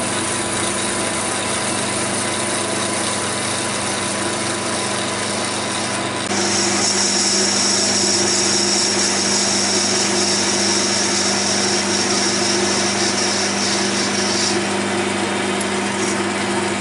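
AL-51G mini metal lathe running with the chuck spinning while a boring bar cuts inside the bore. It is a steady machine hum, and about six seconds in it gets louder and a high hiss is added.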